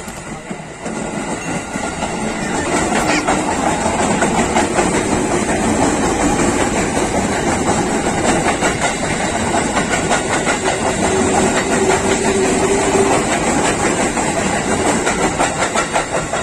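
KRL Commuterline electric multiple-unit train passing close by, its wheels clattering over the rail joints. It grows louder over the first few seconds, then stays loud as the cars go past, with a regular clack-clack near the end.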